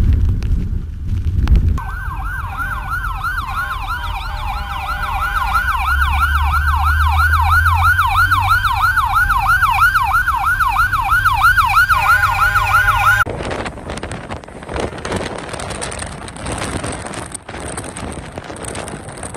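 Emergency vehicle siren in a fast yelp, sweeping up and down about three or four times a second over a low rumble. About thirteen seconds in it cuts off abruptly to a rushing noise.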